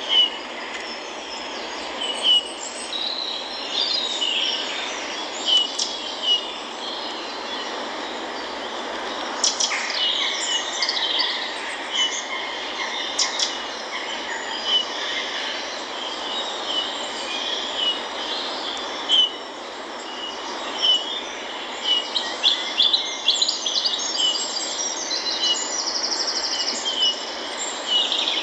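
Bird chirping repeatedly, short high chirps every second or two over a steady hiss.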